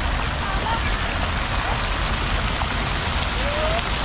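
Water splashing steadily down onto the pool and paving of a plaza water feature, a continuous rain-like patter, with faint distant voices calling now and then.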